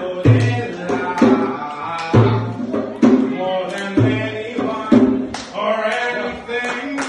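A voice singing a song over a hand drum: deep drum strokes about every two seconds, with sharp slaps between them keeping the beat.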